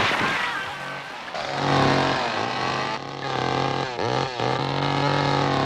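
Two-stroke chainsaw running at a steady high pitch, its engine note dipping and picking back up several times as the throttle is worked.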